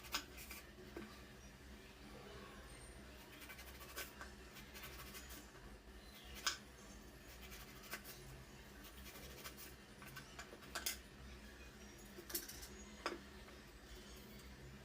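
Quiet kitchen preparation noises: scattered sharp clicks and light scrapes of utensils being handled, over a faint steady hum.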